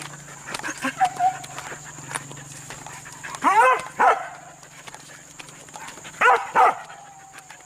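Hunting dogs barking: two loud barks a little over three seconds in and two more just past six seconds.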